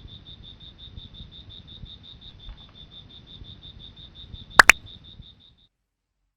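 Rapid high-pitched pulsed chirping at one pitch, about six pulses a second, over a low rumble. Two sharp clicks come close together about four and a half seconds in. The sound cuts off shortly after.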